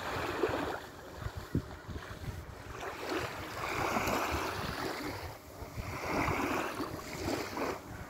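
Small waves washing onto a sandy beach, swelling twice, with wind buffeting the microphone.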